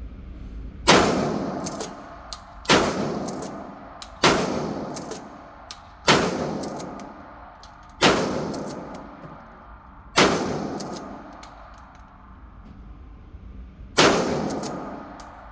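Seven shots from a Mossberg 88 pump-action shotgun, one roughly every two seconds with a longer pause before the last. Each shot rings out and dies away, and lighter clicks come between the shots.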